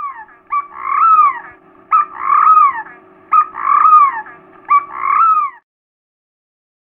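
A dove calling: a short note followed by a longer note that rises and then falls, repeated four times at an even pace over a faint steady hum. The calls stop near the end.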